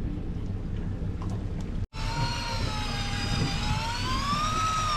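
Low rumble of the fishing boat's engine. About two seconds in the sound drops out briefly, then a motor's whine with overtones starts, slowly rising and falling in pitch: an electric fishing reel winding a line up under changing load.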